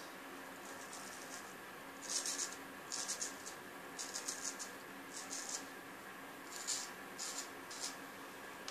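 Vintage A.J. Jordan straight razor shaving the neck, its blade rasping through beard stubble in a series of short strokes that start about two seconds in.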